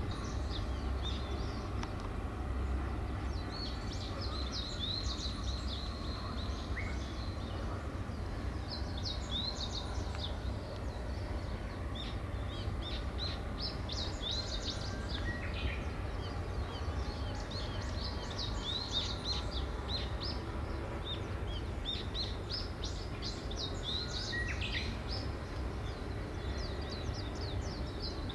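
Small birds chirping and twittering in quick clusters of short calls, over a steady low rumble.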